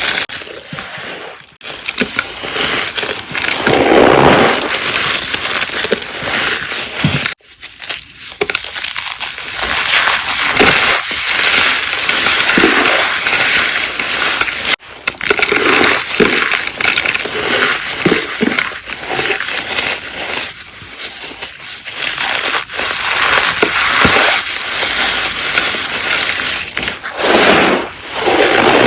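Blocks of gym chalk being crushed and squeezed, a dense crunching and crackling of crumbling chalk, with a few abrupt cuts between takes.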